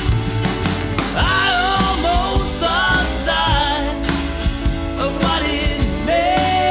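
Band music with drums and a pedal steel guitar, its lead line sliding and bending between notes.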